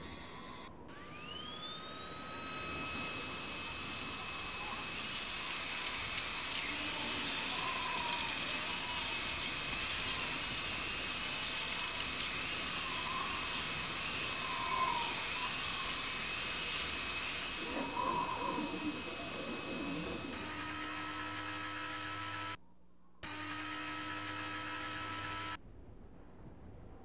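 Synthetic sound effects for the Mars Science Laboratory rover's machinery. A motor-like tone rises about a second in, then a high, wavering, drill-like whine runs over steady tones. Near the end a steadier electronic hum takes over, breaks off briefly and stops.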